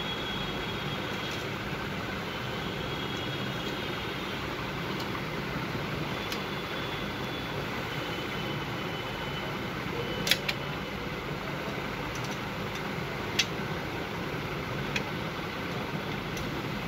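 Steady whir of a fan running, with four sharp clicks of a screwdriver on the projector's metal chassis in the second half; the loudest comes about ten seconds in.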